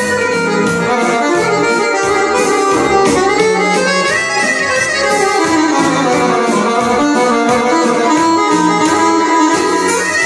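Live band music: an accordion lead over synthesizer keyboard backing (Roland Fantom G6), with a bass line and a steady beat.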